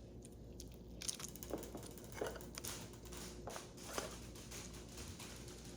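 Bead-filled slime being squeezed and pulled apart by hand: faint, scattered crackles and clicks, starting about a second in.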